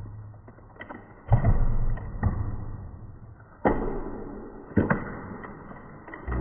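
Plastic blind-pack tubes and capsules being twisted open and handled on a cloth-covered table, with several sudden thumps about a second apart as pieces are knocked against or dropped onto the table.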